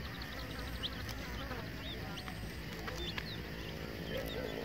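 Baby chickens peeping: many short, high chirps, several a second, over a steady low rumble.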